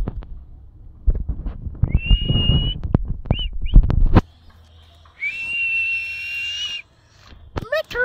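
Plum-headed parakeet calling: a held high whistle about two seconds in, two short notes, then a longer steady whistle of about a second and a half, with short chirps near the end. Loud low thumps and rustling run under the first four seconds.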